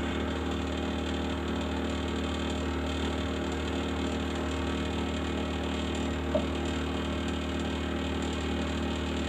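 Steady machine hum made of several fixed tones, running at an even level, with a faint tap about six seconds in.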